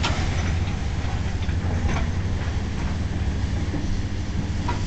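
Wind buffeting a handheld camera's microphone: a steady low rumble, with a few faint scattered clicks.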